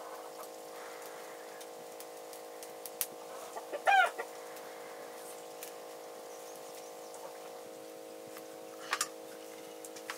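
A single short, loud animal call about four seconds in, heard over a steady hum of several tones. Two quick clicks come near the end.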